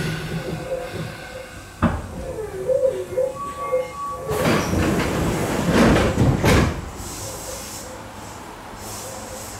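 Inside a stopped Tokyu 8500 series commuter car: a sharp clunk about two seconds in, a few short tones, then a loud hiss of released compressed air lasting about two seconds from the train's pneumatic equipment, before it settles to a low steady hum.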